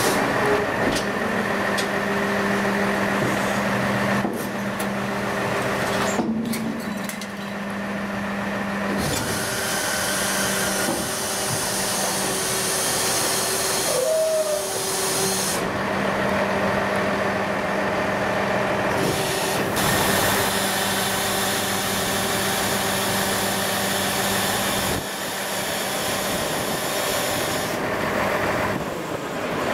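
Rear-loading garbage truck's hydraulic system running, a steady mechanical hum with hiss that shifts several times as the rear loader works, with a short squeal about halfway through.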